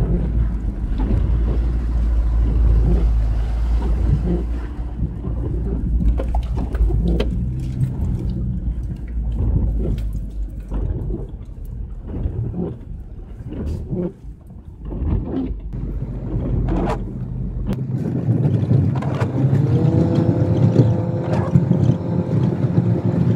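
Mitsubishi Delica L400 van heard from inside the cab on a rough track: a low engine rumble with frequent knocks and rattles from the bumps. A little before the end the sound changes to a steadier engine drone with a whine.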